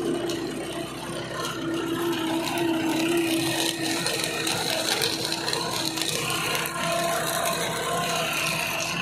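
Tractor-drawn seed drill sowing black gram: the drill's roller chains, sprockets and seed-metering plates rattle and click continuously over the tractor's engine running at a steady pitch.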